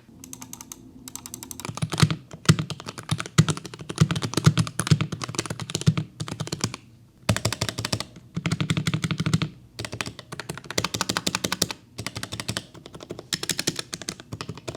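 Keychron K6 mechanical keyboard typed on as a sound test: fast runs of key clacks in bursts with brief pauses between them. The keyboard has lubed switches and O-rings fitted under the keycaps to make it quieter, and it sits on a bare desk with no desk mat.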